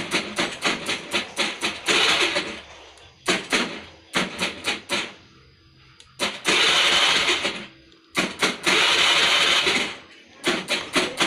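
Honda Vario 110 carburettor scooter's electric start pressed over and over: rapid ctek-ctek clicking at about five a second, broken by a few longer stretches of the starter turning over without the engine catching. The clicking is the sign of a weak starter relay, built into the CDI unit on this scooter.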